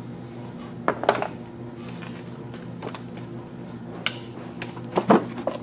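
A few sharp plastic clicks and knocks from handling the F-150's stock airbox and its inlet air temperature sensor connector: a cluster about a second in, one about four seconds in and a couple more near the end, over a steady low hum.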